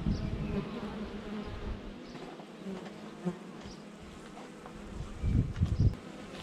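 Honey bees buzzing around a busy, freshly opened hive: a steady hum, with a few low thumps near the end.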